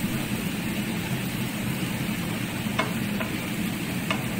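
Fish, tomatoes and black lemon frying in a pan, sizzling steadily while a wooden spatula stirs them, with a few clicks of the spatula against the pan in the second half.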